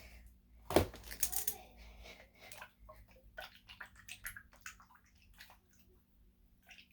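A liquid-filled squishy fidget toy being squeezed and moved about, making short irregular watery sounds, like water moving around in a mouth. There is one sharp knock about a second in.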